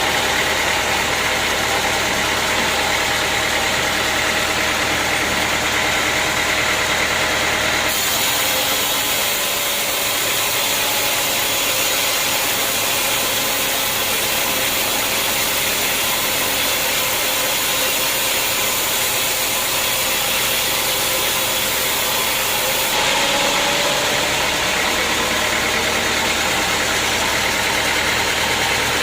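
Sawmill machinery running steadily. From about eight seconds in to about twenty-three seconds in, the sound turns higher and hissier, with less low rumble.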